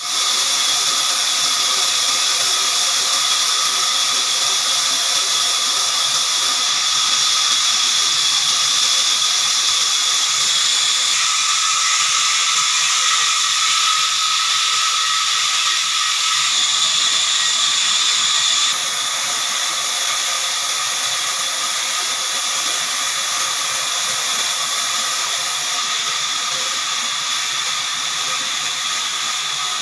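Horizontal band sawmill running, its blade cutting through a log: a steady high hiss with a few whining tones held throughout, dropping a little in level about two-thirds of the way through.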